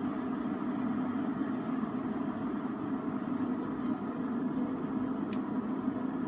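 Aicok stainless steel cordless electric kettle heating water up to the boil: a steady rushing rumble, with a single click about five seconds in.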